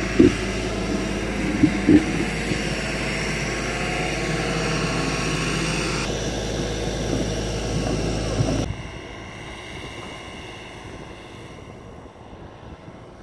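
Heavy truck's diesel engine running hard under load, stuck in sand, with a few short knocks early on. About two-thirds of the way through the sound drops abruptly to a quieter engine rumble.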